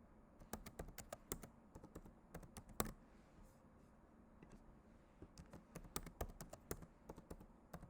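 Faint typing on a computer keyboard: quick irregular key clicks in two runs with a pause of about two seconds between them.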